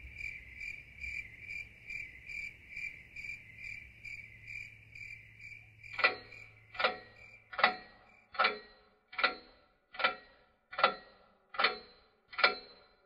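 A high, chirping tone pulsing about two and a half times a second. About six seconds in it gives way to louder, evenly spaced sharp ticks, each with a brief ringing, coming a little more than once a second.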